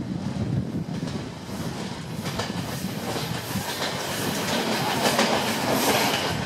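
Passenger train running along the track, its wheels clacking over rail joints with a steady rumble. The sound grows louder over the second half.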